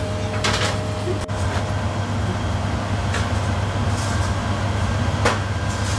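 Busy commercial kitchen: a steady low drone from the extraction hood over the range, with several short clinks and knocks of pans and utensils.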